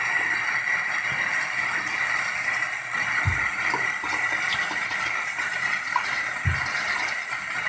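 Tap water running steadily into a sink during tooth-brushing, with two soft low bumps partway through.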